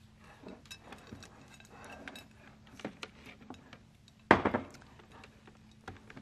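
Kitchenware being handled on a counter: scattered light clinks and taps, with one louder ringing clank a little over four seconds in.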